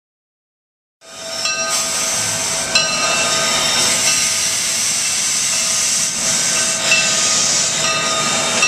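Steam locomotive Granite Rock Co. No. 10 standing with steam hissing steadily as it vents. The sound cuts in about a second in.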